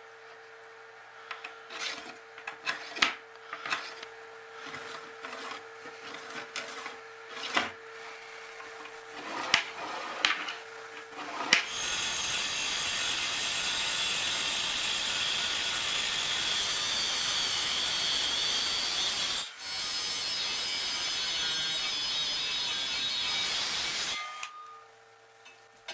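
Tools being handled, with scattered knocks and clicks. About halfway through, a power tool starts and runs steadily for roughly twelve seconds, cutting out briefly once before carrying on.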